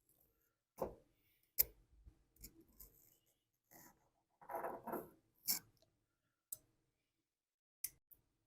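Sparse light clicks and taps of small carburetor parts being handled on a workbench during reassembly of a Tecumseh carburetor, with a short rustle about halfway through.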